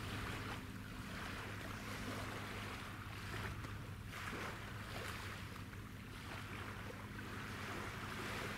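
Low, steady drone of ship engines from the ferry Suzuran and its attending tug out on the water. Over it, a rush of wind and water swells and fades every second or two.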